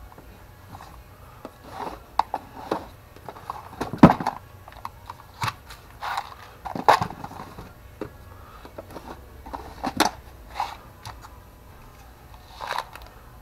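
Small metal hardware being handled by hand: scattered clinks, clicks and short scrapes of washers and bolts, the loudest about four seconds in.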